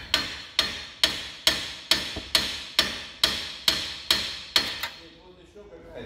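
About a dozen hammer blows on the steel steering knuckle and hub assembly of a Scion xB's front wheel, roughly two a second, each with a short metallic ring.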